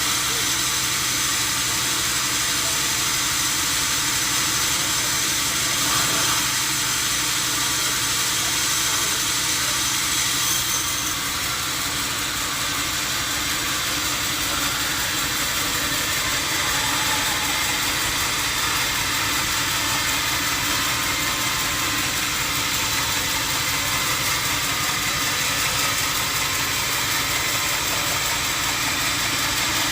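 Sawmill machinery running steadily: a constant motor hum with a hissing high end that eases slightly about ten seconds in.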